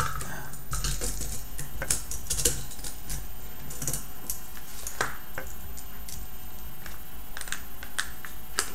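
Small plastic packaging being handled and opened by hand: scattered light clicks and rustles, with a few sharper clicks about two, five and eight seconds in.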